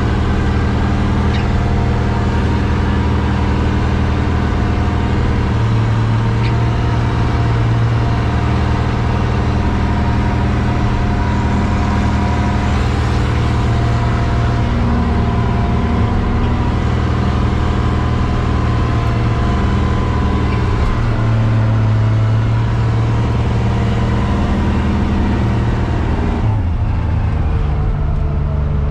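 Straight-piped diesel engine of a wheel loader running loud while plowing snow, its engine note shifting up and down a few times as it works.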